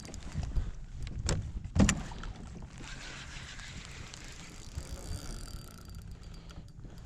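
Wind rumbling on the microphone and water moving around a kayak, with two sharp knocks a little over a second in.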